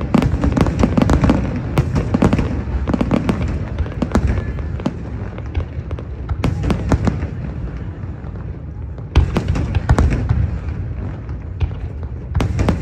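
Fireworks display: many sharp bangs and crackles over a continuous low rumble. The bangs are dense at first, thin out in the middle, then come in a loud sudden burst about nine seconds in and again near the end.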